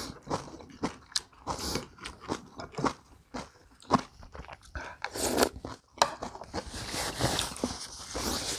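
Close-up eating sounds: chewing and crunching food in short crisp bites, then a denser, continuous noise in the last couple of seconds.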